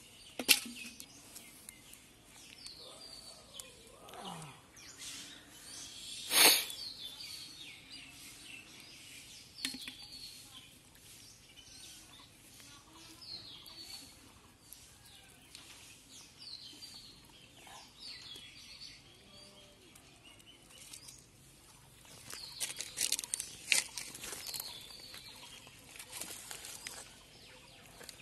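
A bird calling a short falling chirp over and over, every second or two. A blade digging into mud and roots makes occasional sharp knocks and scrapes, the loudest about six seconds in and a quick run of them near the end.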